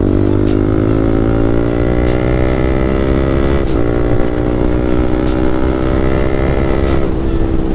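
Yamaha MT15 single-cylinder motorcycle engine through a loud aftermarket exhaust, accelerating under way with its pitch climbing slowly. There is a brief break about four seconds in, and it eases off near the end.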